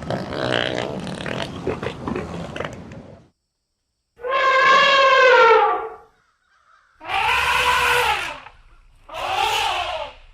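Loud animal calls: a rough, noisy stretch, then after a short silence three drawn-out pitched calls, the first about two seconds long and the next two shorter.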